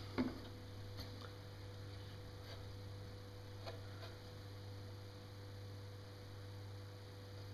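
Low, steady electrical hum, with a few faint clicks.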